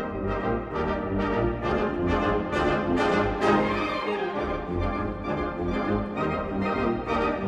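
Concert wind band playing, with the brass to the fore over a steady rhythmic pulse.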